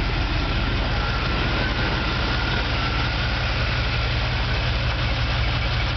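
1977 Chevrolet pickup's engine idling steadily.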